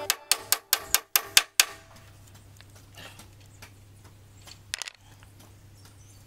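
Ratchet wrench clicking as it tightens the bolt through a leaf-spring eye: about eight sharp clicks in the first second and a half, then a few faint ticks and a brief scratchy noise about five seconds in.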